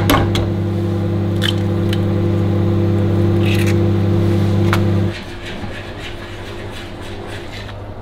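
A kitchen appliance runs with a steady low electric hum that cuts off abruptly about five seconds in. A few light clicks and a short scrape of cookware sound over it.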